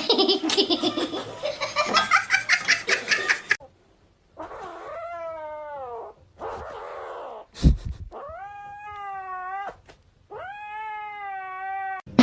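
A cat yowling: three long, drawn-out meows in the second half, after a busy stretch of rapid clicks and cries in the first few seconds, with a short thump between the meows.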